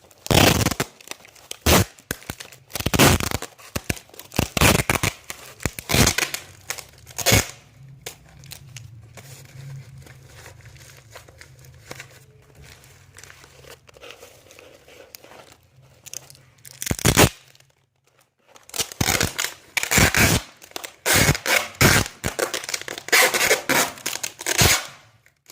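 Hand packing of a parcel: sharp tearing rips and crinkling of wrapping material and tape, in clusters at the start and again near the end, with a quieter stretch in between.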